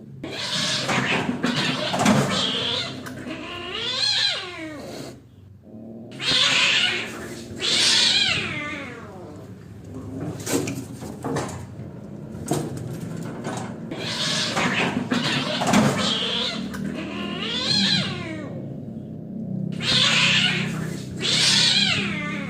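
Cats fighting: long, wavering yowls and caterwauls that rise and fall in pitch, broken by harsher screeching outbursts, one near the start, another around the middle and another near the end.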